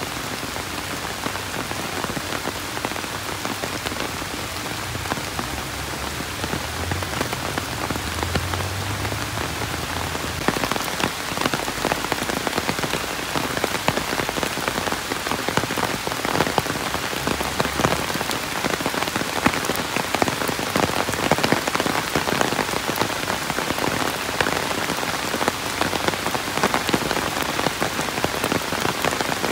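Heavy rain falling, a steady hiss dense with sharp ticks of single drops hitting close by, growing a little louder partway through. A low rumble sits underneath during the first half.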